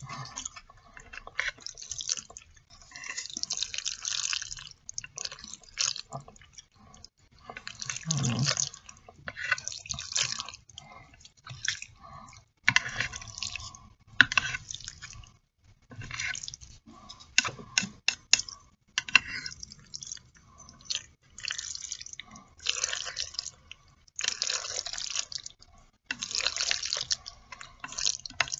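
Black bean sauce noodles (jajangmyeon) being stirred and lifted with wooden chopsticks, making wet, sticky sounds. They come in irregular bursts a second or two long, with quick clicks between them.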